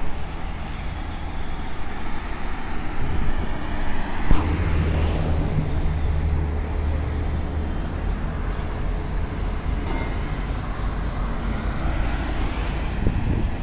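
Steady rumble of road traffic and construction machinery, with a heavier engine drone swelling from about a third of the way in until past the middle.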